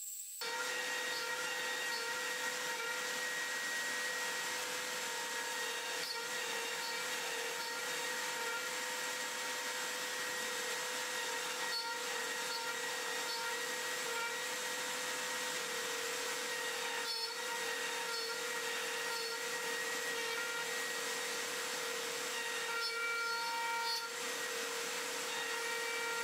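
CNC router's Makita trim-router spindle running at a steady high-pitched whine, its bit cutting into an MDF spoil board with a dry, even rasping noise.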